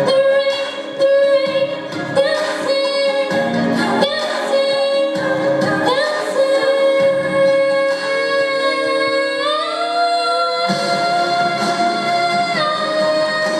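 A woman singing a song with musical accompaniment, holding long notes; her pitch steps up about ten seconds in and drops again near the end.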